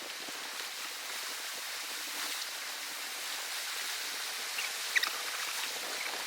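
Steady wash of surf on the shore, with a few faint high chirps about five seconds in.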